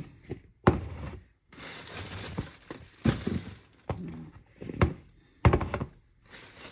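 Irregular sharp knocks and thuds of kitchen food preparation on a counter, with a rustling hiss between them.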